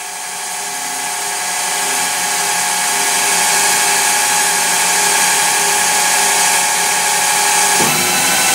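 EMCO CNC lathe running with its spindle turning the chuck: a steady machine whine and hiss that grows louder over the first two seconds, then holds. The tool is running through the program in front of the workpiece without cutting metal.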